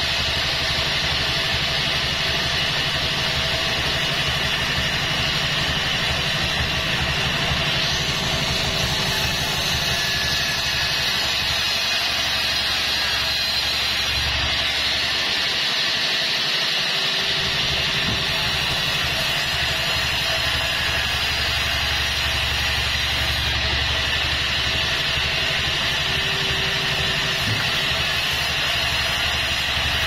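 Band sawmill running with its blade cutting lengthwise through a log: a steady machine hum under a hiss of sawing. The low hum briefly dips about halfway through.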